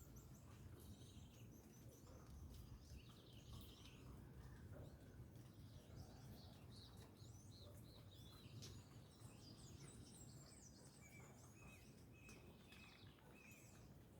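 Faint birds chirping and calling, with a run of short repeated notes near the end, over a low steady outdoor rumble.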